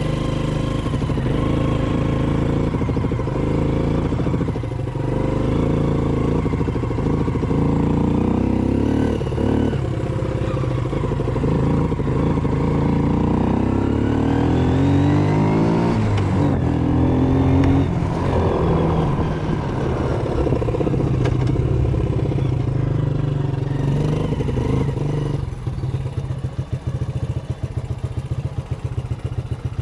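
Yamaha Grizzly 80 ATV's small single-cylinder four-stroke engine running after its new ignition switch let it start. It revs up and down through the middle, then settles to a lower, even idle for the last few seconds.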